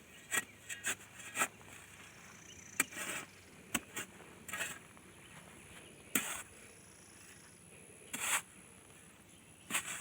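Shovel digging a shallow hole in the ground: short, sharp stabs into the soil and brief scrapes, a dozen or so at irregular intervals.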